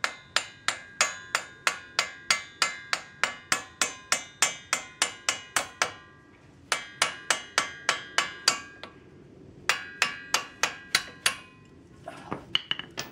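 Brass hammer striking a socket set on the end of a CV axle, to drive the axle's rusted splined shaft out of the wheel hub. The strikes are quick and metallic, with a ringing tail, about three a second, in three runs with short pauses between; a few lighter knocks come near the end.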